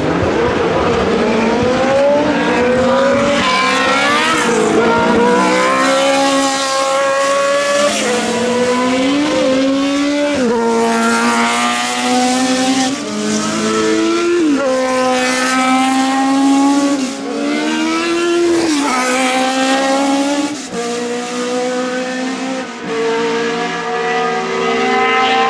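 Historic Formula 1 cars' engines at full throttle. The pitch climbs through each gear and drops sharply at every upshift, again and again, with more than one car at once in places.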